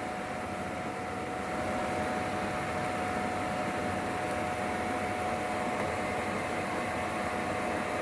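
Milestone Start D microwave digestion system running: a steady fan whir with a thin, steady hum over it.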